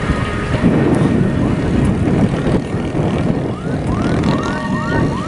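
Many motorcycle engines running and revving as a crowd of motorbikes crosses a railway level crossing. From about three and a half seconds in, a vehicle siren starts a fast, repeating rising yelp.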